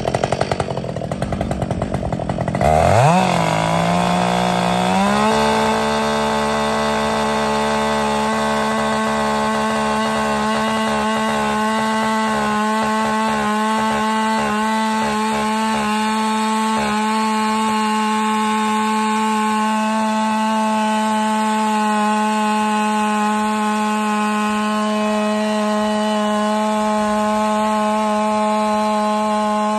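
Husqvarna 572XP two-stroke chainsaw throttled up about three seconds in, its pitch climbing for a couple of seconds, then held at a steady wide-open scream while cutting along a pine log. This is the AutoTune reset run, done wide open in the wood so the saw's automatic carburetion relearns its fuel mixture.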